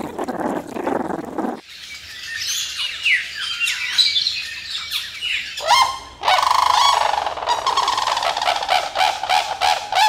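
Crunching as a meerkat chews a lettuce leaf, then several seconds of high, gliding chirps and squeaks. From about six seconds in, a pair of cranes call in unison, heads thrown back, with a loud rhythmic trumpeting.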